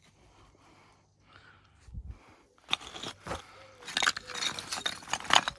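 Building stones clacking and scraping against one another as they are shifted and sorted by hand, a cluster of sharp knocks starting about halfway through and loudest near the end.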